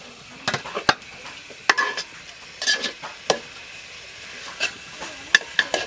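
A stirring utensil scraping and knocking against a cooking pot as spiced chicken pieces are turned over, in irregular separate strokes, with a low sizzle underneath. The curry is being braised down (kosha) after a little water was added.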